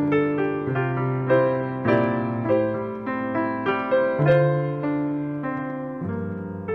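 Piano playing a melody of notes struck about twice a second over held bass notes, each note ringing and fading away.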